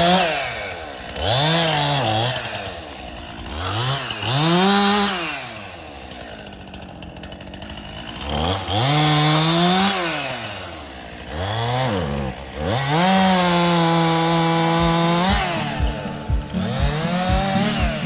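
Stihl MS261C two-stroke chainsaw revved up and down several times, then held at full speed for about two seconds before dropping back to a low, uneven idle near the end.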